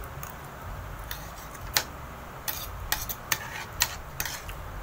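Spoon and fork clicking and scraping against a plate as rice is scooped up. About seven short, sharp clicks come at uneven intervals.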